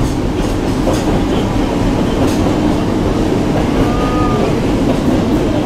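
Hakone Tozan Railway electric train running through a tunnel, heard from inside the front car: a steady rumble of wheels on rail with a few light clicks. About four seconds in, a faint short squeal from the wheels.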